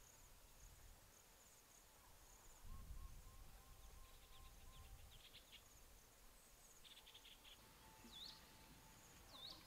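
Near silence with faint outdoor ambience: insects chirping in short repeated trills, a few faint bird calls near the end, and a brief low wind rumble about three seconds in.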